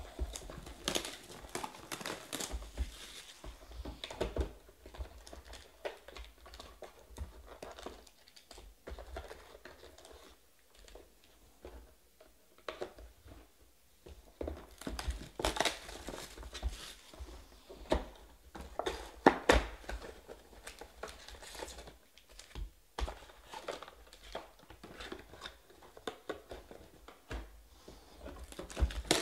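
Foil trading-card packs crinkling and cardboard card boxes knocking against each other as they are handled and restacked on a table, in irregular bursts with quieter gaps.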